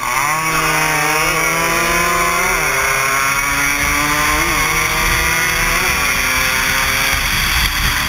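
Small single-cylinder two-stroke racing motorcycle engines, of the Suzuki AX100 type, running at high revs, heard on board. The engine note climbs sharply at the start, then holds high with a few brief rises and dips in pitch.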